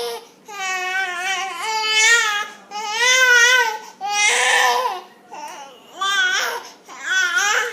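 A baby making loud, crying-like wails and squeals over and over. Each lasts about a second, with a wavering pitch and short breaks between.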